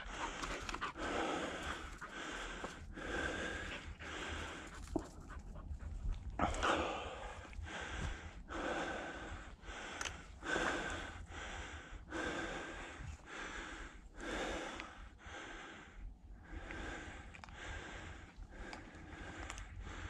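Heavy, rhythmic breathing, in and out about once every second or less, of a person walking hard while carrying the camera, with a low rumble of handling noise underneath.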